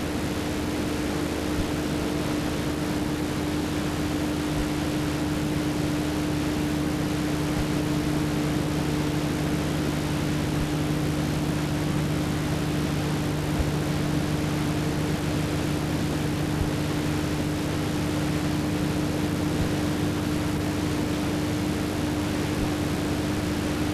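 Steady hiss under a constant low electrical hum, with no music. A second, lower hum comes in a few seconds in and fades out a few seconds before the end.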